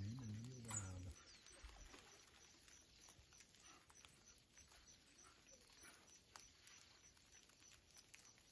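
Near silence: faint outdoor ambience with scattered small ticks and a few brief high chirps. It opens with a low, wavering voice lasting about a second.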